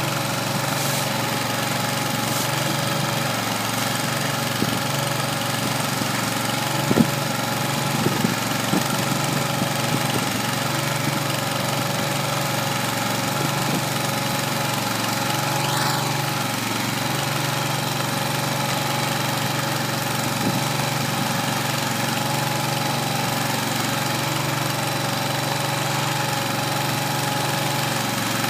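Kohler 25 hp gas engine of a small 25-cubic-foot feed mixer running steadily while the mixer turns over chopped hay. A few sharp knocks sound about seven to nine seconds in.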